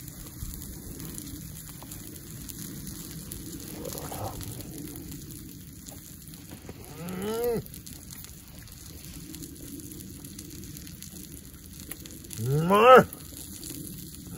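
A man chewing a mouthful of steak lets out closed-mouth 'mmm' moans of relish that rise in pitch. There are two of them: a short one about seven seconds in and a louder one near the end.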